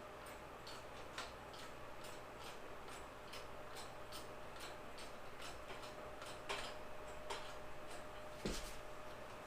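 Faint, regular clicking, about three clicks a second, with a thin steady tone that slides down in pitch and stops near the end.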